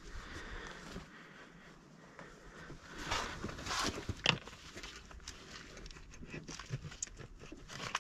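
Pliers clicking and scraping on a fiber drop connector while it is twisted and pulled in its terminal port, with rustling of gloves and cables; one sharp click a little after four seconds in. The connector is seized in the port and won't come off.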